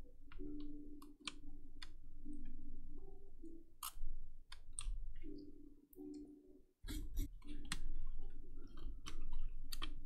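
Scattered light clicks and taps of small tools and keyboard plastic being handled while desoldered wires are pulled free of a circuit board, over a faint low hum that comes and goes.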